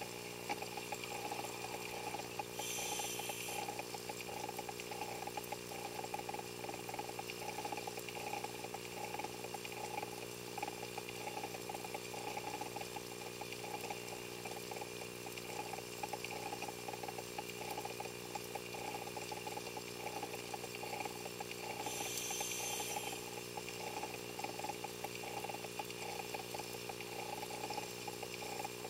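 Underwater sound picked up through a diving camera's housing: a steady hum with a fast flutter, and twice a short burst of hiss, about two seconds in and again near 22 seconds.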